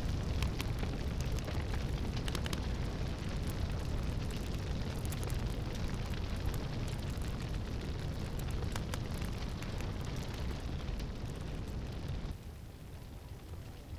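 A fire burning through a hut's thatched roof: a steady low rush of flames with many sharp crackles and pops. It cuts off abruptly about twelve seconds in, leaving a fainter hiss.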